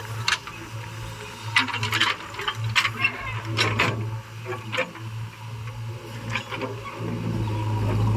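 Heavy-machine diesel engine running with a steady low hum, under irregular metal clanks and rattles.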